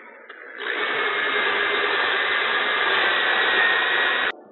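Power drill spinning a foam-backed 220-grit sanding disc lightly against a turned wooden hat, a steady whirring whine. It starts about half a second in and stops suddenly near the end.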